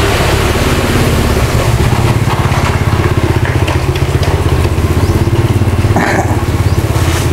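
Small motorcycle engine idling close by: a steady low throb with a fast, even pulse.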